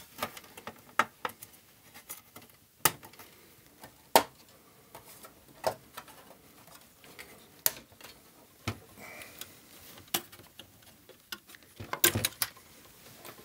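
Plastic clicks and knocks as the Commodore Amiga 4000's plastic front faceplate is worked loose by hand, its clips being squeezed and snapping free. The clicks come irregularly, about one a second, with a quick cluster near the end as the faceplate comes away.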